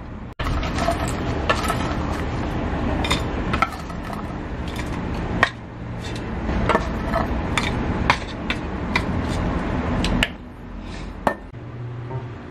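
Chopsticks moving air-fried potato fries around stainless steel dishware: irregular sharp clinks of wood on metal over a steady scraping and rustling, which drops away about ten seconds in.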